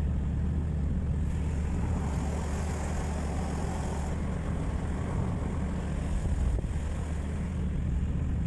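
Steady low rumble of a car driving on a wet road, heard inside the cabin: engine and tyre noise with a faint hiss above it.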